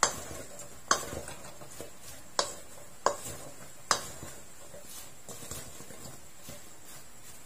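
A wooden spatula knocks and scrapes against a stainless steel mixing bowl as sliced apples are tossed. Five sharp knocks come in the first four seconds, then softer stirring.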